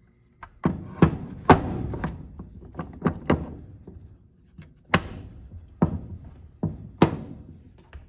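Sharp knocks and clinks of a Kia/Hyundai 2.4 balance shaft oil pump assembly's aluminium housing and metal parts being handled on a wooden workbench: about a dozen separate strikes, each ringing briefly.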